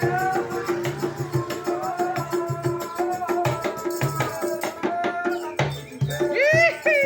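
Street busker music: a steady rhythmic beat with tambourine-like hand percussion and a shaker, a repeated low note, and a wavering melody line over it.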